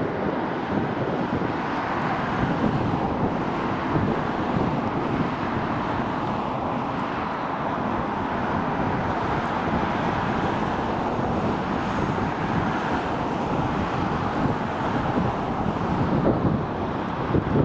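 Two steam locomotives working a train of coaches past, a steady mechanical sound without a break, with wind noise on the microphone.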